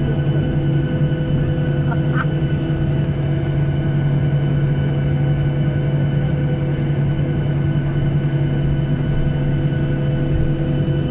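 Steady engine drone: a constant low hum with several fixed tones above it, unchanging throughout.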